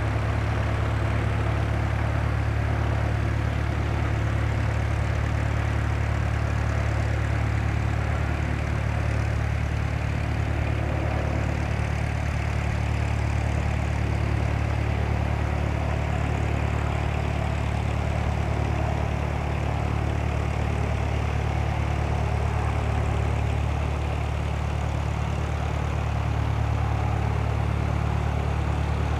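Robinson R22 Beta helicopter in flight: a steady drone from its piston engine and two-blade main rotor, unchanging throughout.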